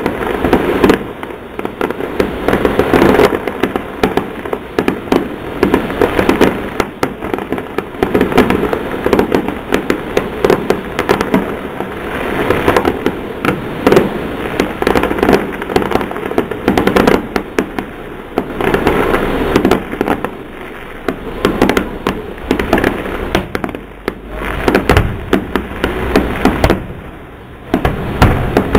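Fireworks display: aerial shells bursting in a rapid, near-continuous string of bangs and crackles, easing briefly near the end.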